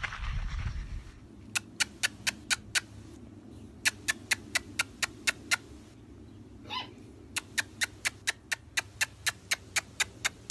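Quick runs of mouth clicks, kissing noises made to call puppies, about four a second in three bursts with short pauses between. A puppy gives one short whine about seven seconds in.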